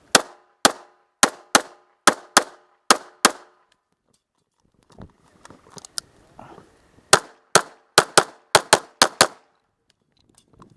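Pistol shots fired in quick succession, mostly in pairs, during a timed action-pistol course of fire. There are eight shots in about three seconds, a pause of a few seconds with only faint shuffling sounds, then eight more shots in about two seconds.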